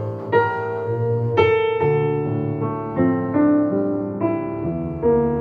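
Piano and double bass playing together: a series of piano chords, each newly struck, over held low bass notes.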